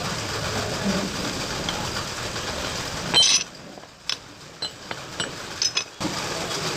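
Steady workshop background noise, then a sharp metallic clink about three seconds in, followed by a few lighter clicks and taps of metal parts or tools being handled.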